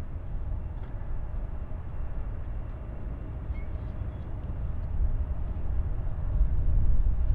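Jet airliner engines on a landing approach: a low rumble with a faint steady whine, dipping slightly and then growing louder over the last few seconds as the aircraft nears.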